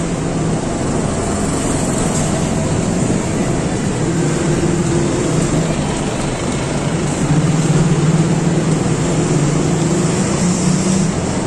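Steady low mechanical drone with a hum, growing a little louder about two-thirds of the way through.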